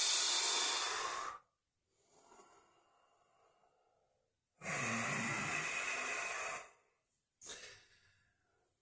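A man's heavy breathing through the mouth during effort: a long exhale lasting about a second and a half at the start, a faint breath, then a second long, sighing exhale of about two seconds, and a short breath near the end.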